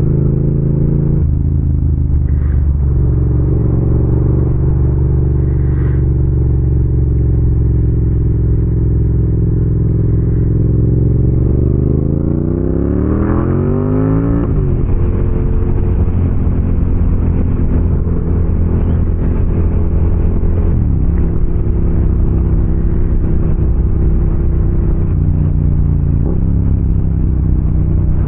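Motorcycle engine running under way at a steady pitch, then revving up with a rising pitch for about two seconds around the middle and dropping sharply at a gear change, before settling back to a steady run.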